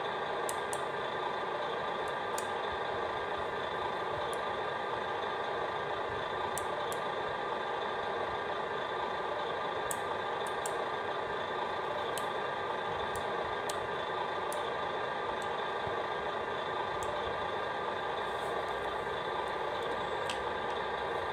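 Servonaut sound module in a 1/14-scale Volvo FH16 RC truck playing a steady truck diesel idle through its small speaker, with a few faint sharp ticks scattered through it.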